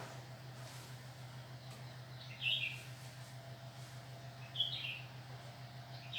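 Short bird chirps, a quick cluster about two seconds in, another near five seconds and a third just at the end, over a steady low hum.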